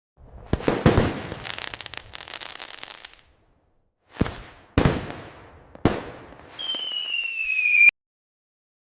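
Fireworks sound effect: a couple of sharp bangs followed by a couple of seconds of crackling, then three more separate bangs, then a whistle falling slowly in pitch that cuts off abruptly.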